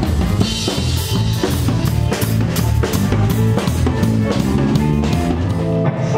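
A live band rehearsing: a drum kit playing a steady beat with kick and snare, over a bass guitar line.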